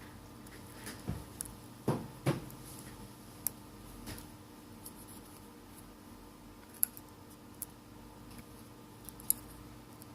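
A small hand tool scraping and picking old adhesive off the phone's camera glass recess: faint scratching with scattered sharp clicks and ticks, the loudest two close together about two seconds in.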